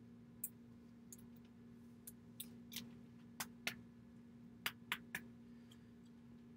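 Light, scattered clicks and ticks of baseball trading cards being flipped through and handled, about ten in all, over a faint steady low hum.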